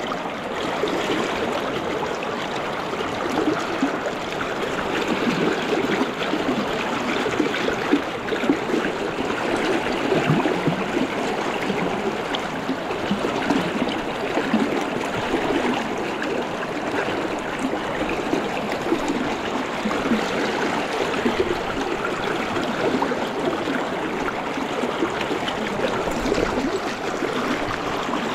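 Fast, shallow river riffle rushing steadily over rocks: a continuous wash of water noise that flickers but never lets up.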